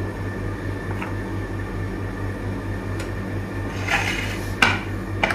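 A steady low electrical hum in a kitchen, with a few light clicks of dishware and a short clatter of plates about four seconds in.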